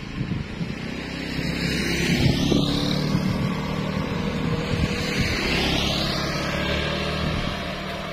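A vehicle engine running steadily on the move, with road and wind noise. A rushing noise swells twice, about two seconds in and again around five to six seconds.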